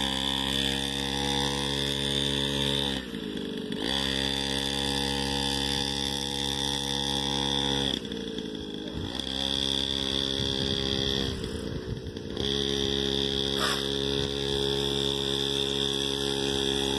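Mini dirt bike's small engine running at a steady, held throttle. It drops off three times for about a second, pitch falling as the throttle is eased, then picks back up to the same steady pitch.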